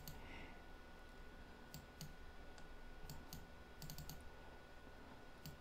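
Faint computer mouse clicks, several sharp clicks at irregular intervals over a quiet background.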